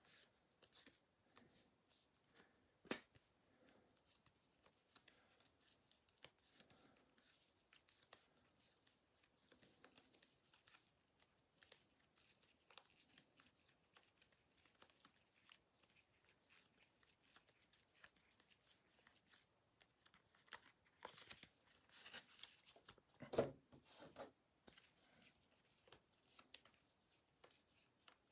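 Near silence broken by faint rustles and light clicks of trading cards being handled and sorted, with one sharper rustle about three seconds in and a burst of louder shuffling around twenty seconds in.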